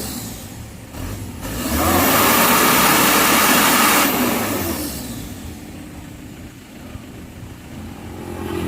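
Vehicle engine revved up hard for about two seconds, then dropping back to a lower, steady run.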